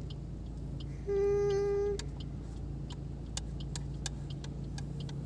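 Steady low hum of a car cabin while riding. About a second in, a single flat-pitched tone sounds for just under a second. Faint irregular ticks run through the rest.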